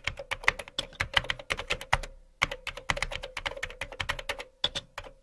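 Typing on a computer keyboard: quick runs of key clicks, a short pause about two seconds in, then more typing.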